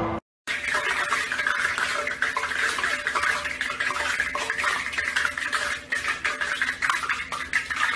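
Stovetop noise from a lidded metal pot being handled: a steady crackling hiss with frequent small clinks and clatters. It starts about half a second in.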